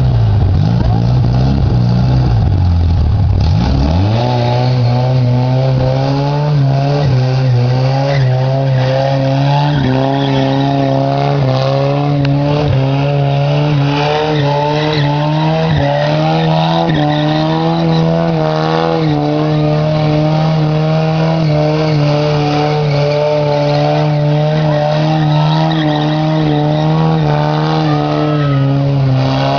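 A motor vehicle engine held at high revs while tyres squeal, as in a stunt run. The revs dip and climb back about four seconds in, then hold steady.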